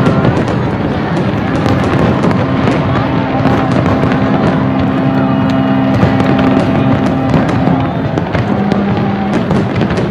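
Aerial fireworks bursting, a rapid string of sharp pops and bangs several times a second over a dense, steady din with some held tones.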